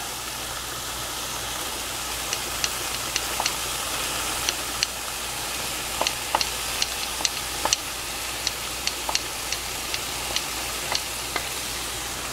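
Mushrooms sizzling in a non-stick frying pan at medium heat as chopped kale goes in: a steady hiss with frequent sharp crackles and pops.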